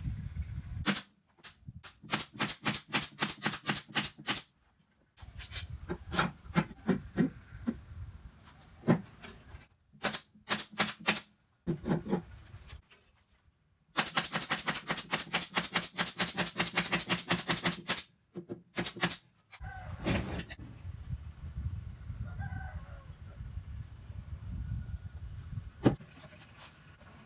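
Handheld power tool running in repeated bursts, each a fast, even train of knocks, as when driving fasteners into a wooden subwoofer enclosure. The longest burst comes about halfway through. After that there is only a low rumble and one sharp click.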